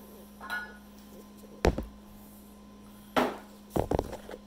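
A phone being handled and set down on a wooden table, heard through its own microphone: one sharp knock about a second and a half in, then a few more knocks near the end, over a steady low hum.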